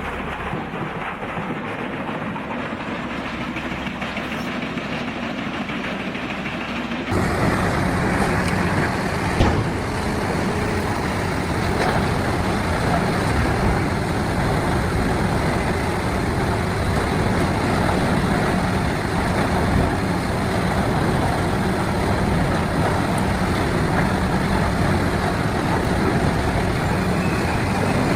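Heavy wood-chipping machinery running steadily. About seven seconds in it steps up suddenly to a louder, fuller sound, and a single sharp bang comes a couple of seconds later.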